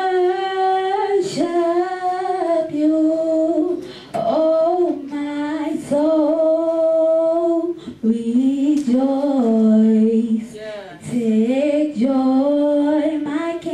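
A girl singing solo, holding long notes and sliding between them, with a lower held note about eight seconds in.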